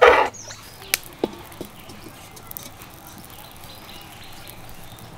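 Knife chopping green beans on a cutting board: one loud chop right at the start, then a few lighter knocks over the next second and a half, followed by faint ticking.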